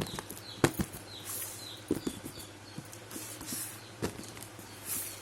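Small plastic toy kitchen pieces being handled: sharp clicks and taps of hard plastic, with brief rustles, the loudest taps near the start and about two and four seconds in.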